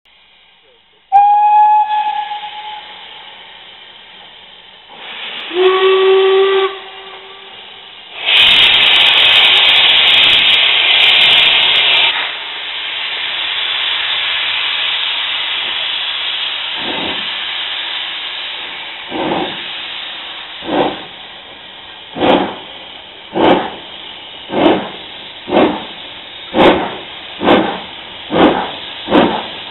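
Two steam locomotives, BR Standard Class 5 73129 and LMS Princess Coronation 8P 46233, starting a train together: a high whistle, then a lower whistle a few seconds later, followed by a burst of loud steam hiss. Then the exhaust beats start up slowly and quicken as the train gathers speed.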